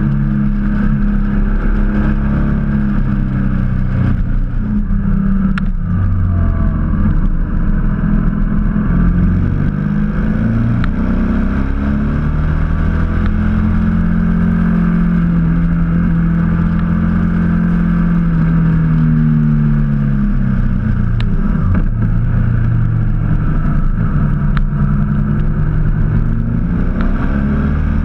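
Motorcycle engine heard on board the moving bike, its pitch rising and falling several times with the throttle through the bends, over a steady rush of wind noise.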